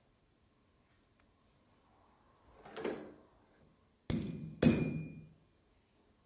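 Two hammer blows on steel at the anvil, about half a second apart, the second leaving a brief ringing tone. A softer dull knock comes a little over a second before them.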